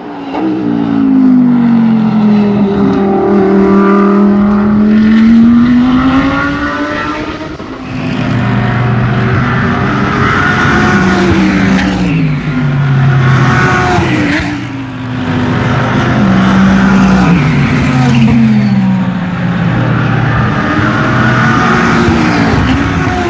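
GT3 race car engines at full throttle on track. First one engine note dips and swells as a car goes past. Then a car accelerates away through quick upshifts, its note climbing and dropping at each gear change, several times in a row.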